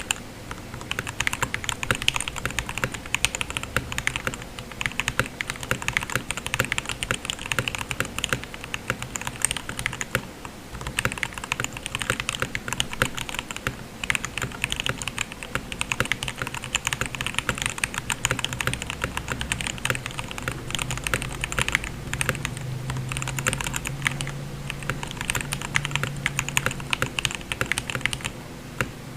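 Typing on an RK61 hotswap mechanical keyboard with Gateron Yellow linear switches (milky top, black bottom housings), foamed and tape-modded, with holee-modded, lubed stabilizers: a quick, continuous run of key presses, easing off briefly about ten seconds in.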